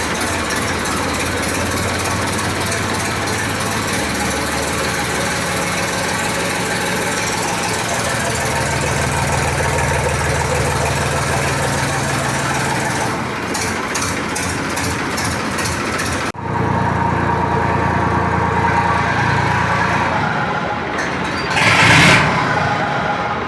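New Holland diesel tractor engine running through a newly fitted silencer. Its speed steps up a few times, the sound changes abruptly about 16 seconds in, and a short louder burst comes near the end.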